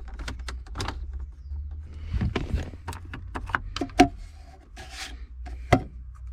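Clicks and knocks of hard plastic being pressed and handled on a car dashboard, with the loudest sharp knock about four seconds in, over a low steady hum.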